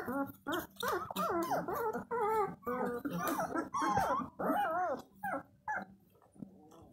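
A litter of White Swiss Shepherd puppies whining and squealing together, many short high calls overlapping. The calls thin out and fade after about five seconds.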